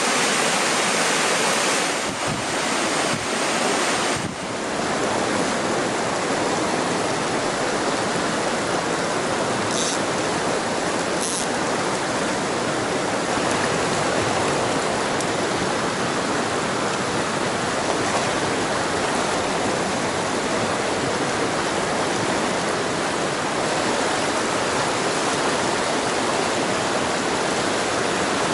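Fast mountain stream rushing over rocky riffles: a steady, loud water roar with no break.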